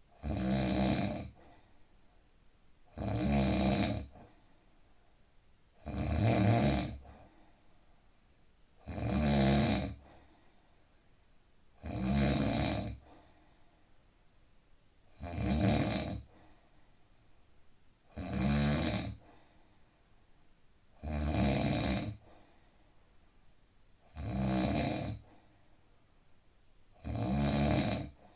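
A man snoring deeply and evenly: about ten snores, one every three seconds, each lasting about a second, with quiet breathing between.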